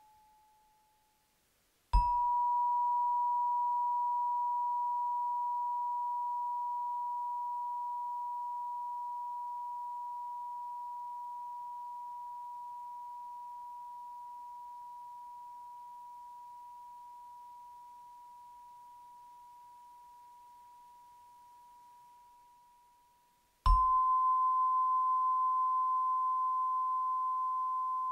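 Chakra chimes: a metal chime tube is struck about two seconds in and rings as one pure tone, slowly dying away over some twenty seconds. Near the end the next, slightly higher tube is struck and rings on, the chimes being played one after another up the scale of the chakras.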